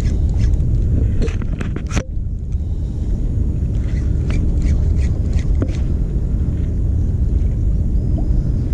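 Wind rumbling on the microphone, steady and loud, with scattered light ticks and clicks, the densest cluster about two seconds in.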